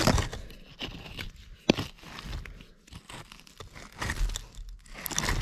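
Hand digging and scraping through loose soil and dump debris close to the microphone: irregular crunching and crumbling with sharp clicks, one sharp click a little under two seconds in.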